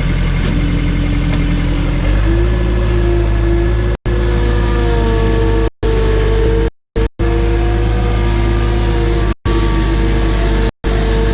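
Case/Davis D100 backhoe's engine running and revving up about two seconds in as the bucket starts working a stump, with a whine that wavers in pitch over the engine drone. The audio cuts out briefly several times because the recording is corrupted.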